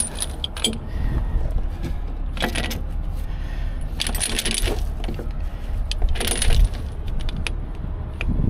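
Heavy steel recovery chain clinking and rattling in several short bursts as it is handled and wrapped around a forklift's steer axle, over a steady low rumble.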